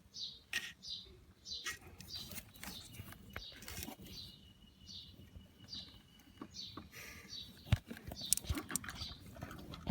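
A small bird chirping over and over, short falling chirps less than a second apart, over scattered clicks and knocks from hand work on the engine, with two sharper knocks near the end.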